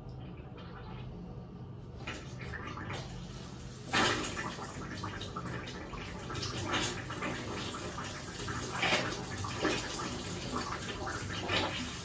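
Water running into a filled bathtub, starting about two seconds in and surging sharply about four seconds in, then going on as a steady wash with uneven louder splashes.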